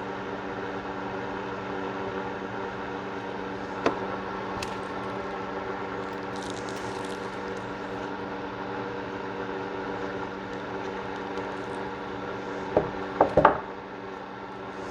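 A steady mechanical hum runs throughout. There is a single sharp click about four seconds in and three quick knocks near the end.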